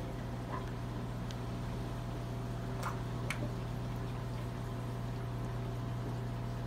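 Saltwater aquarium running: a steady low electric hum from its pumps under a continuous wash of moving water, with a few faint clicks about three seconds in.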